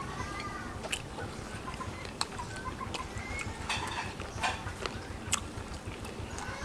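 A person chewing and smacking their lips while eating meat with their fingers, heard as scattered sharp wet clicks. Faint short chirps sound in the background.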